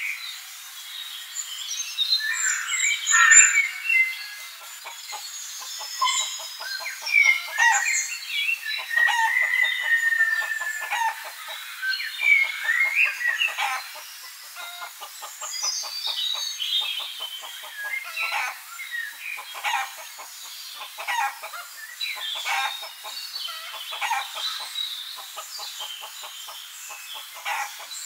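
Domestic hens clucking and calling throughout, with a rooster crowing among them and many short chirps overlapping.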